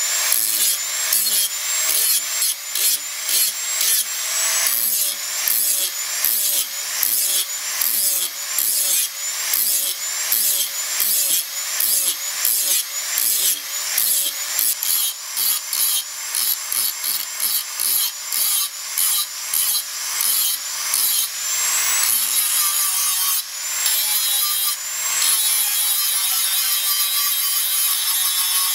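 Corded angle grinder with an abrasive disc grinding rust off a steel cleaver blade. It works in quick repeated passes, about two a second, its high whine dipping under load and rising again each time. Near the end it settles into one steady, unbroken grind.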